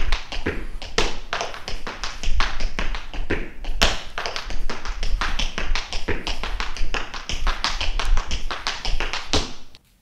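Tap dancing: metal-plated tap shoes striking a hard floor in fast, uneven rhythms of sharp clicks, several a second, which stop abruptly near the end.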